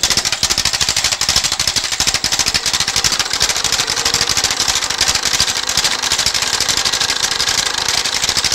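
A machine clattering rapidly and steadily, a dense run of fast mechanical clicks that does not let up.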